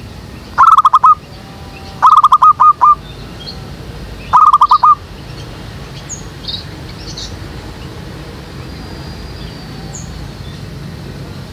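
Zebra dove cooing close by in three quick runs of rapid staccato coos, the middle run the longest, with faint chirps of small birds in between.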